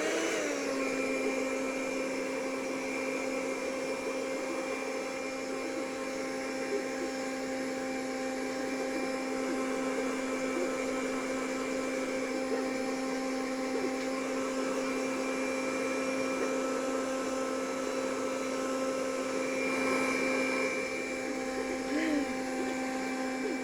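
Gama handheld hair dryer running steadily, a motor-and-fan whine at one fixed pitch over rushing air, starting right at the beginning.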